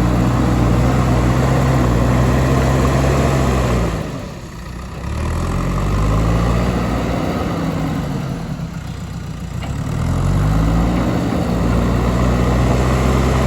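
JCB 3DX backhoe loader's four-cylinder diesel engine running hard under working load, its revs sagging twice and climbing back up each time as the hydraulics work.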